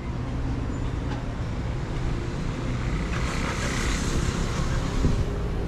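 Car driving along a city road: a steady low rumble of engine and road noise, with a hiss that swells about halfway through and fades near the end.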